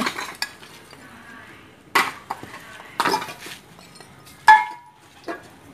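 A few sharp clinks and knocks of hard objects striking one another, about two, three, four and a half and five seconds in; the loudest rings briefly.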